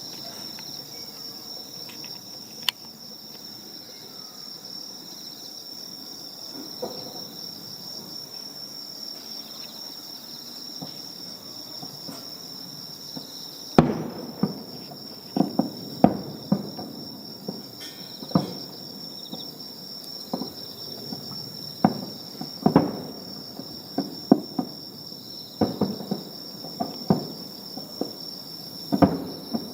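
Fireworks bursting: a single bang about three seconds in, then from about fourteen seconds a run of bangs a second or two apart, each briefly trailing off. A steady high insect trill runs underneath throughout.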